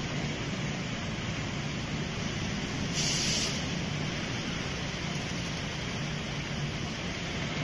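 Steady hum and hiss of a running CNC glass cutting line's machinery, with a short, louder hiss about three seconds in.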